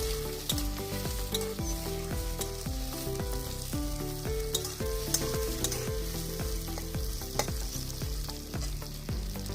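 Sliced onions sizzling in hot mustard oil in a kadai as they fry toward brown. A spatula stirs them with scattered clicks and scrapes against the pan, over steady background music.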